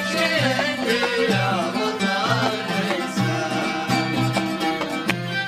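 Yemeni Lahji folk music: a stringed-instrument melody that slides between notes over a low drum beating a steady, repeating rhythm.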